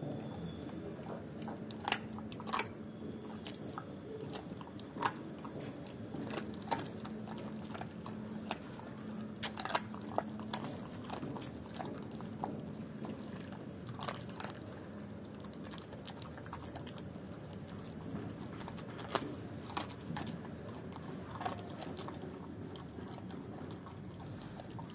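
German Shepherd chewing raw chicken legs, with sharp, irregular crunches of bone every one to a few seconds.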